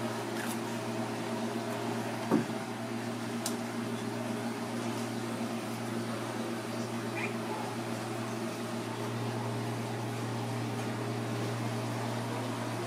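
Steady mechanical hum of a running machine such as a fan or refrigeration unit, with a single sharp knock about two seconds in.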